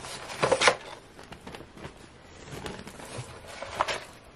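Paper being handled: tissue wrapping paper and cardboard rustling and crinkling, with a louder rustle about half a second in, another near the end, and light taps between.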